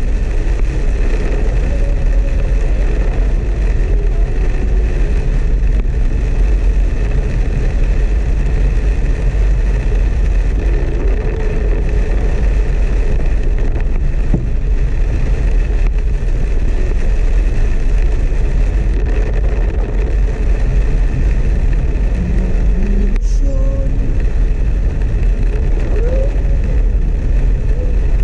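Steady in-cabin driving noise from a Suzuki S-Presso in torrential rain: a continuous low rumble of the car and tyres on the wet road under an even rush of rain.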